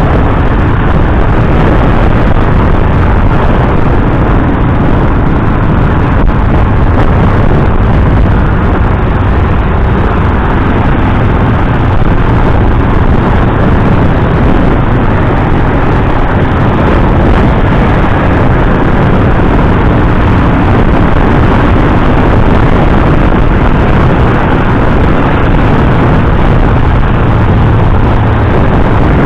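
A motorcycle being ridden at speed through traffic: a steady, loud rush of engine and wind noise.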